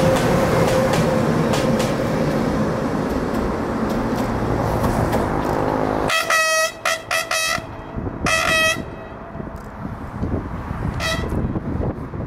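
Freight train running past with a steady rolling rumble of wheels on rail, which cuts off sharply about six seconds in. Then come four short horn blasts in quick succession and a last brief one near the end, over a fading low rumble.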